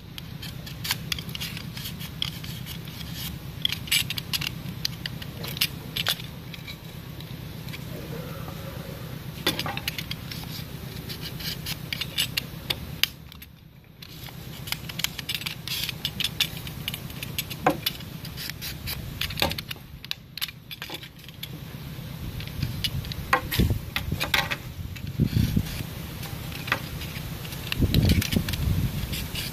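Utility knife blade cutting and scraping green bamboo: a quick, uneven run of small scraping clicks and snaps, with a brief lull about halfway. A steady low hum runs underneath.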